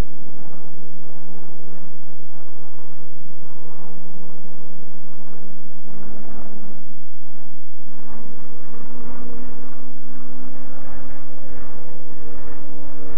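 Propeller aircraft's piston engine droning steadily, its pitch rising slowly throughout.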